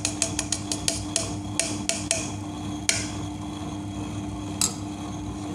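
A steel spoon clinking against the stainless steel drum of a running table-top wet grinder while the batter is checked: a quick run of about ten sharp clinks in the first two seconds, then two single ones. Under it, the grinder's motor hums steadily as the stone rollers turn through moong dal batter.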